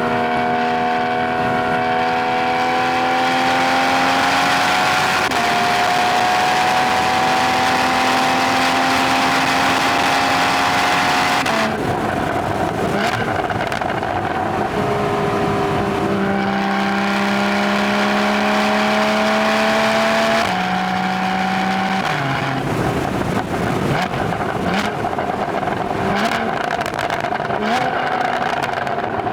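Porsche 981 Boxster GTS flat-six engine and exhaust under load, its pitch rising steadily through a long pull in one gear. About twelve seconds in it lifts off, with crackles on the overrun, then pulls again. Around twenty seconds in the pitch steps down, and it coasts with pops and crackles from the exhaust.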